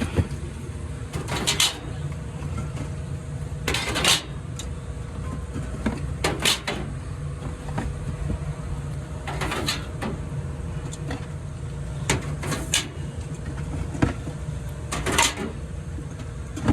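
Soda cans being loaded one after another into a drink vending machine's columns, a short knock or clink every second or few, over a steady low hum.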